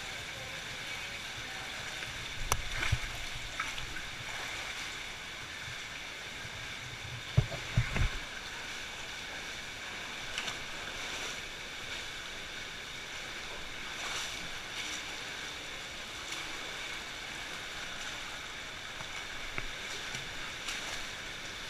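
Water sloshing and splashing as people wade on foot through a shallow cave stream, over a steady rush of water. Louder splashes and thumps come about two and a half seconds in and again about seven and a half seconds in, with smaller sloshes after.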